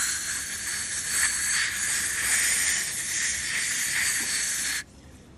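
A steady airy hiss that cuts off suddenly near the end.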